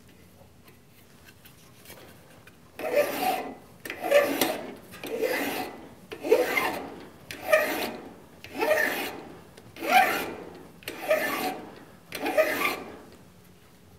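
Hand file drawn across the outer edge of a steel tube held in a lathe's four-jaw chuck, taking off a burr. Nine strokes about a second apart, starting about three seconds in.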